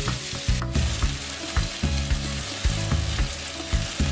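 Steaks frying in hot oil in a nonstick pan, a steady sizzle, with background music playing under it.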